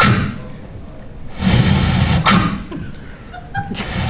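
Mouth-made sound effects performed into a microphone: short, noisy bursts of breath and voice, one about a second and a half in and another near the end.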